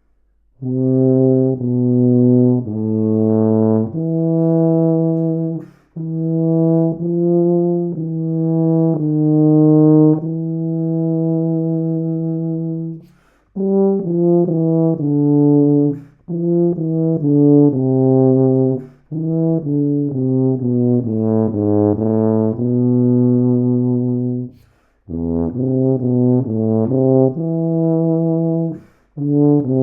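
Wessex Anton TC491 rotary-valve C tuba played solo: a melodic passage of long held notes and quicker shorter notes, in phrases separated by short breaks.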